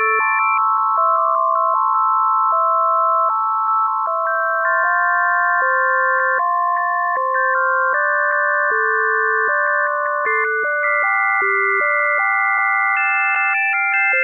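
Background music: a simple synthesizer tune in pure, beep-like tones, with a lower line stepping from note to note under held chords.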